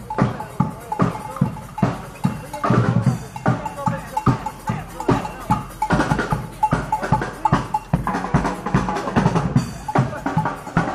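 Brass street band playing: sousaphone, saxophones and trombone over a steady drum beat of about two strokes a second.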